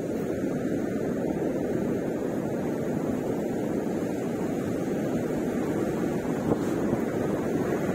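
Ocean surf on the beach mixed with wind on the microphone: a steady, dull rush with no distinct wave crashes.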